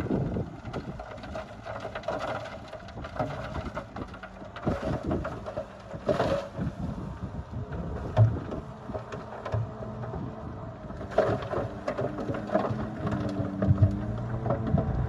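Heavy diesel earthmoving machinery running, with scattered knocks and clatter of dirt and metal at work.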